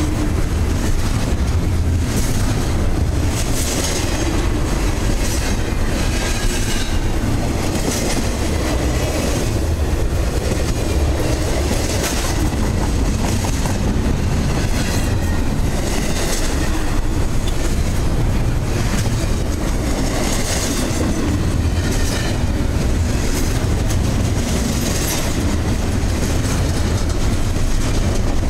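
Double-stack intermodal well cars rolling past close by: a steady low rumble of steel wheels on rail, broken by repeated clacks every second or two as the wheel trucks pass over the rail.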